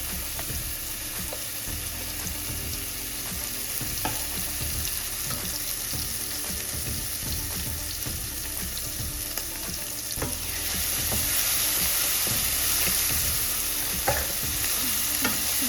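Peppers and onions sizzling in hot oil in a skillet, a steady frying hiss with a few light clicks; the sizzle gets louder about ten seconds in.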